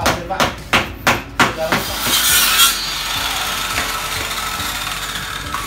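A hammer knocking nails into the wooden slats of a packing crate, about three blows a second. From about two seconds in, a corded circular saw runs steadily through a wooden crate slat.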